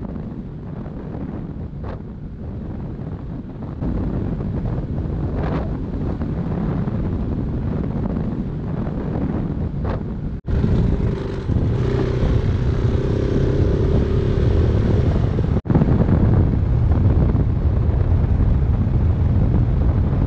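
Dual-sport motorcycle engine running steadily with wind buffeting the microphone. The sound drops out briefly twice, about 10 and 15 seconds in, and comes back with a stronger engine hum.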